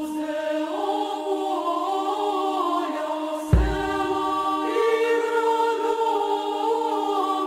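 Choir chanting, a low note held steady beneath a slowly moving melody line. There is a sudden low thump about three and a half seconds in, as a new phrase begins.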